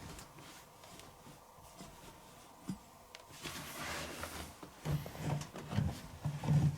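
Laundry being stuffed into a washing machine drum: fabric rustling and rubbing from about halfway, then a run of dull thumps as the clothes are pushed in.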